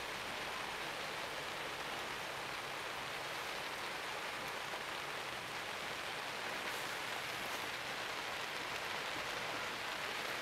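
Steady rain falling, an even hiss with no distinct drops or calls standing out.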